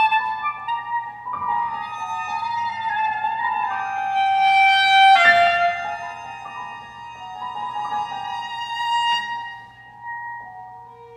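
Chamber quartet of violin, cello, clarinet and piano playing held, overlapping notes that build to a loud peak with a sharp attack about halfway through, then thin out and grow quieter near the end.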